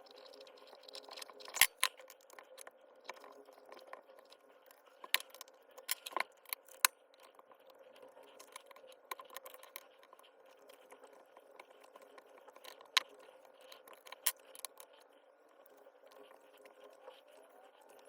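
Scattered sharp clicks and knocks of hand tools and loose parts being handled while a HiKOKI H41SA3 demolition hammer is taken apart, loudest in clusters near the start, around five to seven seconds in, and near thirteen seconds, over a faint steady hum.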